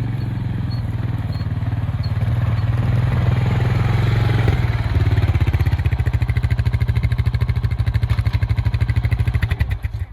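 Vehicle driving, a steady low engine and road hum. About halfway it turns into a fast, even pulsing. It cuts off abruptly at the end.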